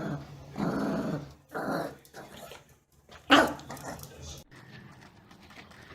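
A dog growling in three short stretches, then one sharp bark about three seconds in, the loudest sound.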